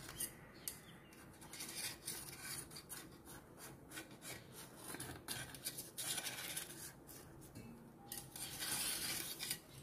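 A small knife scraping and rubbing around the inside edge of a bowl to loosen set, steamed colostrum-milk pudding (junnu) from the sides. Faint repeated scrapes, a little busier near the end.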